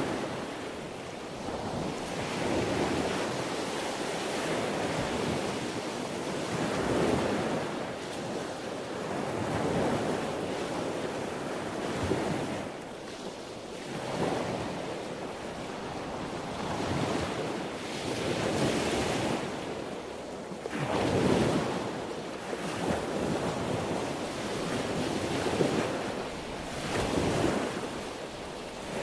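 Sea waves breaking and washing in, the surf swelling and falling away every few seconds.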